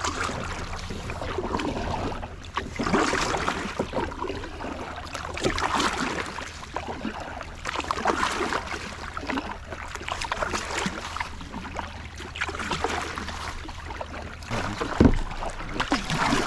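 Kayak paddle strokes dipping and splashing through seawater, a stroke every two to three seconds, with a single thump near the end.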